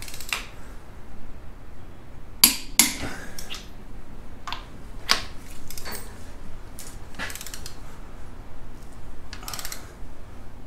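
Torque wrench and socket tightening steel cylinder-head nuts: about a dozen sharp metallic clicks and clinks at irregular intervals, some ringing briefly. This is the final torquing pass on the head nuts, to 125 foot-pounds.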